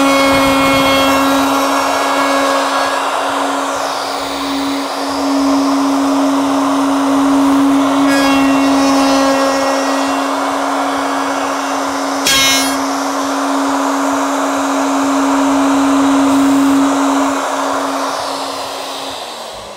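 Ryobi 2 HP plunge router running steadily at high speed, its bit cutting a fin-box slot into a polyurethane foam surfboard blank through an aluminium routing jig. Near the end it is switched off and its whine falls in pitch as it winds down.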